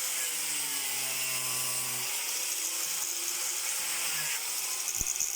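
Handheld angle grinder running and cutting into a frozen chicken polony, with a steady high whine and hiss whose pitch sags slightly as it bites. A single sharp click about five seconds in.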